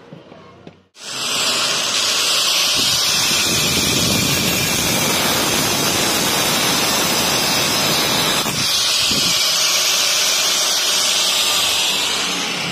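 Angle grinder with a thin cut-off disc starting up about a second in and cutting through a steel bolt: a loud, steady grinding hiss, with a brief dip about eight and a half seconds in. It winds down near the end.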